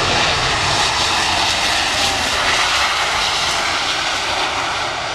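Steady, loud engine noise of a large Airbus transport aircraft flying low on a landing approach: a continuous rushing sound with a faint whine over it.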